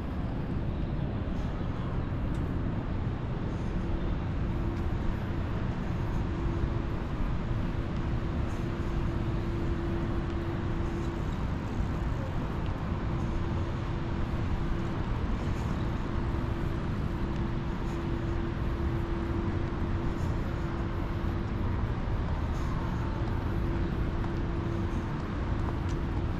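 Steady road traffic noise: a low, even rumble of passing vehicles with a steady hum running through it that breaks off briefly now and then.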